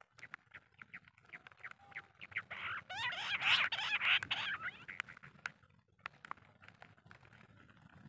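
Bush quail calls: a run of short, sharp clicking notes that builds about halfway in into a loud burst of rapid rising and falling chirps, then thins back to a few scattered clicks.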